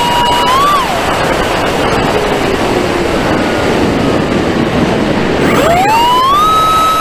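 Emax 2205 2600kv brushless motor on 4S driving the propeller of a Wing Wing Z-84 foam flying wing, heard from a camera on the plane. Its high whine rises briefly and cuts out about a second in, leaving the rush of wind as the plane dives. Near the end the whine climbs steeply in pitch as the throttle comes back up, and holds high.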